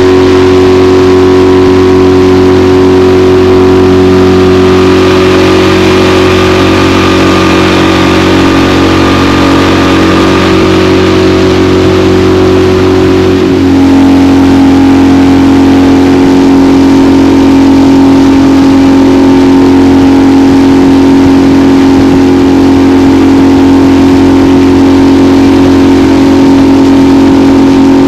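Boat's outboard motor running steadily under way, its engine note shifting lower about halfway through.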